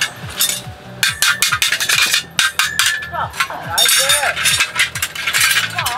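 A rapid, irregular run of clicks and knocks.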